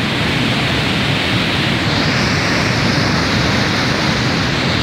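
Muddy flash floodwater rushing down a rocky channel, a loud, steady rush of water.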